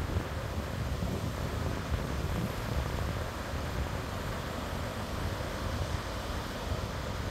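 Steady wind noise buffeting the microphone, mixed with the wash of surf breaking on the rocky shoreline below.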